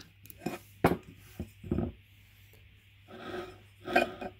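Parts of a stripped-down Xiaomi Pro 2 hub motor, its metal casing and red wheel shell, being handled and set down on a wooden workbench: a few short knocks and scrapes, the loudest about a second in and near the end.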